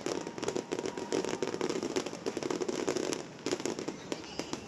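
Fireworks crackling: a dense run of rapid overlapping pops and snaps that eases a little about three seconds in.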